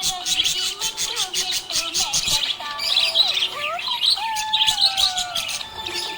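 Budgerigars chirping and warbling: a rapid, continuous high chatter of short chirps, mixed with gliding whistled notes that rise and fall.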